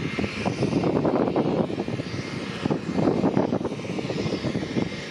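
Four Rolls-Royce AE 2100 turboprop engines of a Lockheed CC-130J Hercules running on the ground, a continuous drone with a higher whine above it that swells and eases every second or two.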